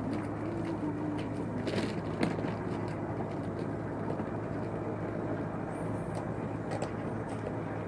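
Open-air background noise with a steady low drone and a few faint clicks and knocks.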